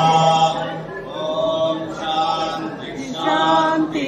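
A group of voices singing a devotional chant in long held notes.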